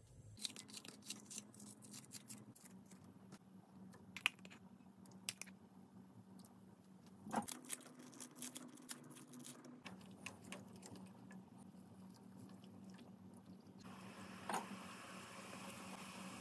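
Scattered light clicks and taps of a spoon and kitchen scissors working over a small pot of broth on a gas stove. Near the end a soft steady hiss sets in as the broth comes to the boil.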